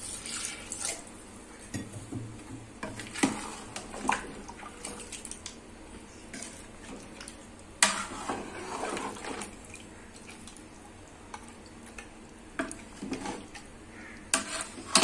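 Water poured into a metal cooking pot of browned mutton to start a gravy, then a metal ladle stirring and scraping against the pot, with scattered clanks. The sharpest clank comes about eight seconds in.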